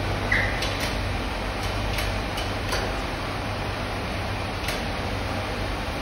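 Bronze melting furnace running with a steady rushing noise and low hum, with a few sharp metallic clicks and clinks scattered through.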